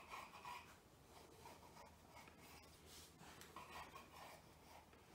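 Kitchen knife slicing through a rolled sheet of fresh pasta dough into tagliatelle strips: a series of faint, short scraping strokes.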